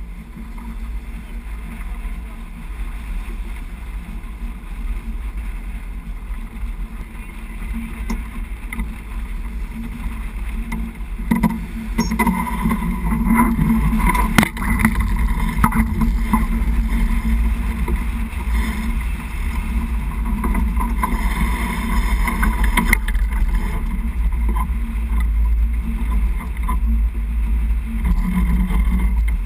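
Water rushing along a sailing yacht's hull as it heels under sail, with wind buffeting the microphone as a steady low rumble. From about twelve seconds in it grows louder, with a few sharp knocks.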